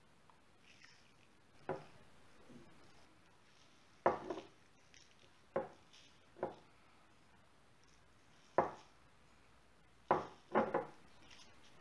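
About seven sharp knocks and taps, spaced a second or two apart, from a small glass jar and a metal loaf tin being handled on a kitchen counter while poppy seeds are sprinkled by hand over bread dough.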